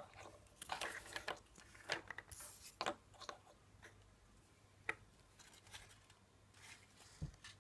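Faint, scattered clicks and light rustles of a small plastic Kinder Surprise toy figure and its stand being handled.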